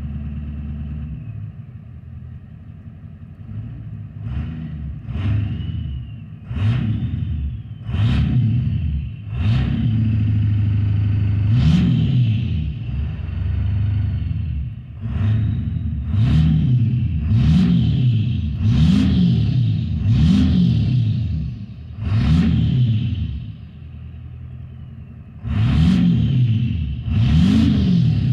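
7.3-litre PowerStroke V8 turbodiesel in a Ford E-350 van, with a Holset HX50 turbo and dual 5-inch exhaust, revved in a string of quick blips, the engine speed rising and falling about once every second or so. A high whistle rises and falls over the revs.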